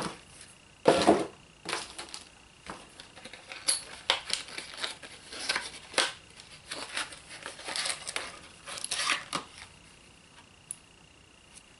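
Packaging crinkling and rustling in irregular bursts with small clicks, as parts are unwrapped and handled; it dies down about three quarters of the way through.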